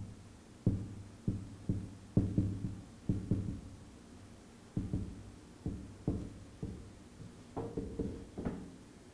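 Whiteboard marker knocking against a whiteboard during handwriting: a run of soft, irregular taps and thuds, sometimes several a second, with a short pause about halfway through.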